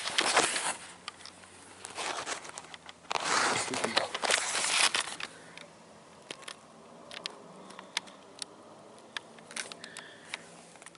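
Rustling and crinkling noises, loudest in the first half, then a quieter stretch with scattered sharp clicks.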